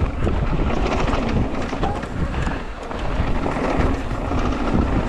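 A mountain bike rolling fast down a dirt trail: wind buffeting the riding camera's microphone over tyre noise, with small rattles and clicks from the bike over bumps.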